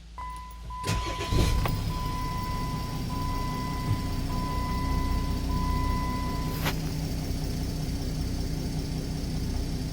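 2006 Jeep Commander 3.0-litre V6 turbodiesel cranking and starting about a second in, then idling steadily. Over it, a dashboard warning chime sounds as a steady high beep in short repeated stretches and stops about two-thirds of the way through.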